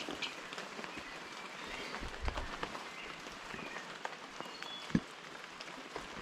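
Steady outdoor hiss with scattered light clicks and a few short high chirps, with a dull low thud a little over two seconds in and a sharp thump near the five-second mark.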